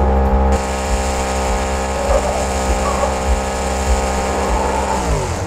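Simulated monster truck engine held at steady high revs while the truck spins donuts, with a hiss of skidding tyres; the engine note drops just before the end.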